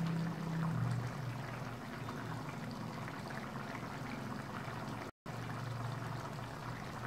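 Watery jackfruit gravy boiling hard in a kadhai on a gas flame, a steady bubbling with a low hum underneath. The sound cuts out for a moment about five seconds in.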